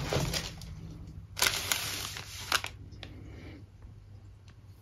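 Clear plastic packaging of a strip packet of diamond-painting drills being handled on a table: a few short, sharp crinkles near the middle, then quieter rustling.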